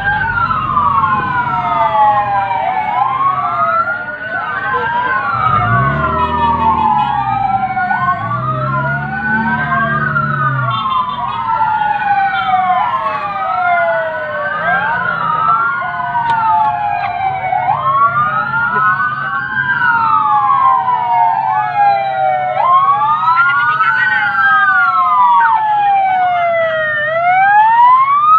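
Several fire-brigade vehicle sirens wailing together, each rising and falling in pitch every couple of seconds, out of step with one another.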